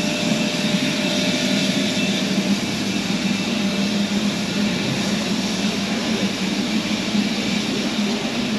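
BR Standard Class 4 2-6-0 steam locomotive 76079 standing at rest, with a loud, steady hiss and roar of escaping steam.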